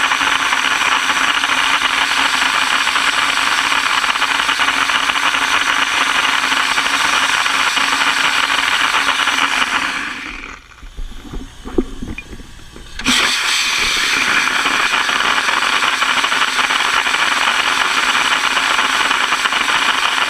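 Dry ice blasting gun running with a loud, steady hiss of compressed air and dry ice pellets, stripping a decal. About ten seconds in the blast stops for roughly three seconds, with a few knocks, one of them sharp, and then starts again abruptly.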